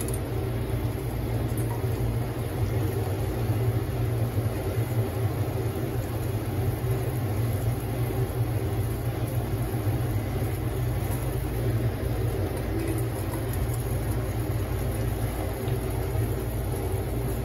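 Steady rumble of a gas stove burner flame under an enamel kettle, with caustic soda solution boiling inside it.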